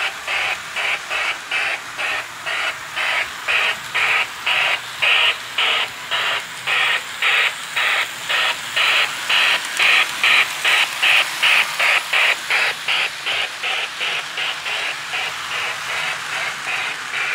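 Lionel O scale steam locomotive's sound system giving a steady chuff, about three hissing chuffs a second. It grows louder through the middle and fades near the end as the engine runs around the track.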